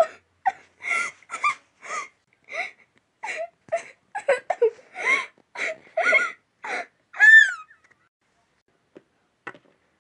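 A girl's voice acting out crying: a run of short, gasping sobs, ending about seven and a half seconds in with one high, falling wail.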